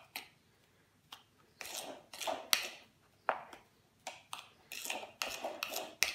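A spoon stirring a dry mix of ground almonds and icing sugar in a bowl, making short, irregular scrapes and rustles against the bowl.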